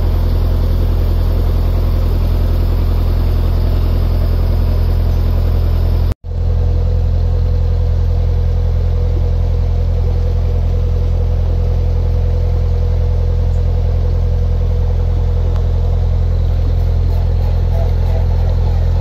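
Narrowboat diesel engine running steadily at cruising speed, a constant low rumble. The sound cuts out completely for a moment about six seconds in, then the engine carries on unchanged.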